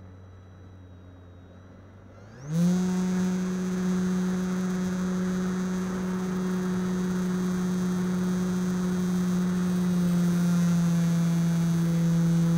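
Motor and propeller of a radio-controlled Air Tractor model plane, heard from a camera on board: a quiet low drone at first, then about two seconds in the throttle opens and the pitch rises quickly to a much louder steady drone that holds, shifting slightly in pitch near the end.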